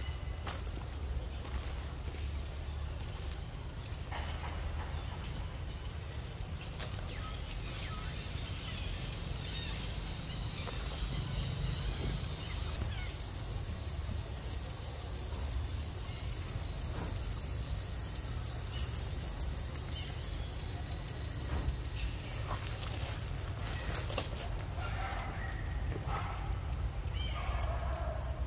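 Insects trilling steadily at a high pitch; about halfway through the trill turns into a fast, even pulsing and grows louder. A low rumble runs underneath.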